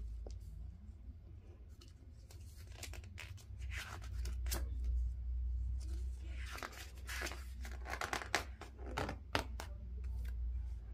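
Paper pages of a hardcover picture book rustling and crinkling under a hand as a page is turned: a run of irregular papery scrapes and clicks, busiest in the second half, over a low steady hum.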